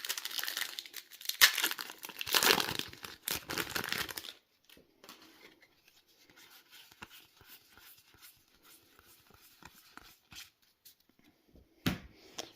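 Foil booster-pack wrapper crinkling and tearing for the first few seconds, then quieter rustling and small clicks of trading cards being handled, with a short crinkle near the end.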